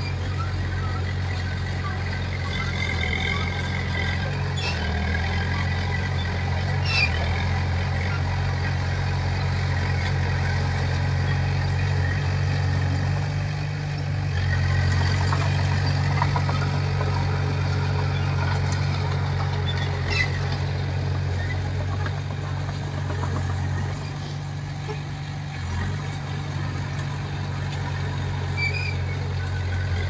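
Komatsu bulldozer's diesel engine running with a steady deep drone under load, growing louder about halfway through and easing off near the end, with a few short knocks.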